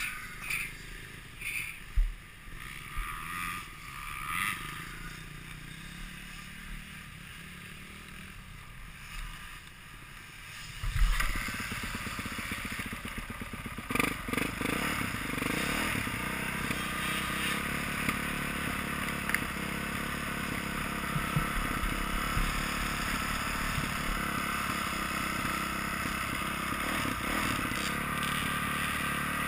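Dirt bike engine starting with a sudden loud burst about eleven seconds in, then running steadily at idle. Before it starts, only scattered light knocks and clatter.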